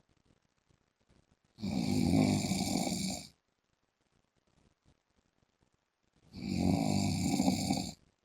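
A man snoring, loud and very regular: two long snores, each lasting under two seconds and spaced about four and a half seconds apart, with near-silent gaps between.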